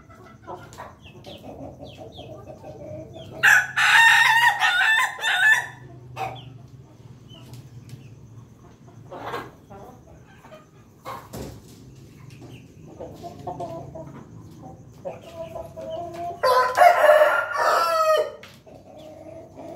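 Ayam Ketawa ('laughing chicken') rooster crowing twice, each crow about two seconds long, the first a few seconds in and the second near the end. Softer clucking comes in between.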